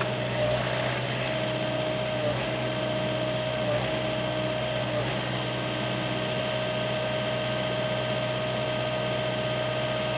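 Excavator engine running steadily: a constant hum with a high, even whine over it.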